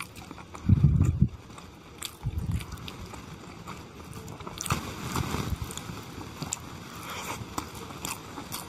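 Close-miked eating of chicken curry and khichuri by hand: chewing and wet mouth sounds with small clicks, and a few louder low thuds, the loudest about a second in.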